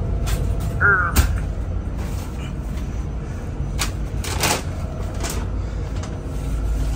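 Knocks, clicks and rustling of groceries being put away in a galley: cupboard doors, boxes and plastic bags, over a steady low hum.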